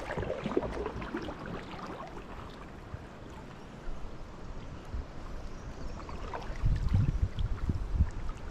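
Water sounds of a kayak being paddled on a river: paddle strokes and water splashing and trickling, with scattered small clicks and a few low rumbles about seven seconds in.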